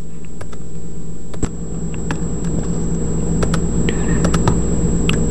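A steady low hum with a faint high-pitched whine, under a scatter of light clicks from computer mouse buttons as files are selected in a dialog.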